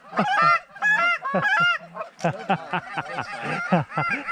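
Goose calls blown by several hunters, rapid overlapping honks and clucks imitating Canada geese to draw in a flock.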